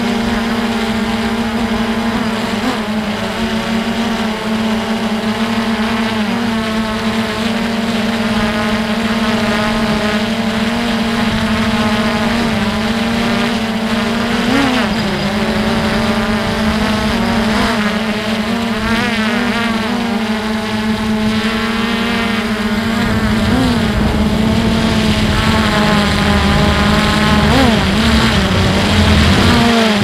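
Small multirotor drone's electric motors and propellers whining steadily, the pitch wobbling briefly now and then as it manoeuvres. Low wind rumble on the microphone underneath grows stronger in the last several seconds.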